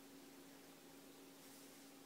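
Near silence: a faint steady hiss with a low steady hum.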